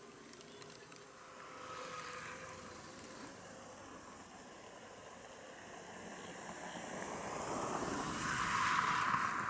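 Airbus A321-211's CFM56 jet engines running on landing approach, a rushing roar that swells as the airliner nears overhead and is loudest near the end.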